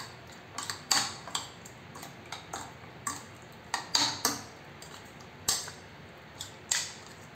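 A metal spoon clinking and scraping against a bowl while stirring chicken pieces in a thick yogurt-and-spice marinade: irregular sharp taps, a few a second.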